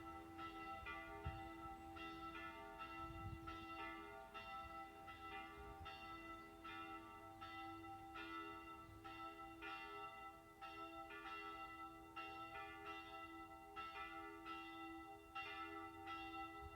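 Church bells ringing, a continuous run of strokes over their sustained ringing hum.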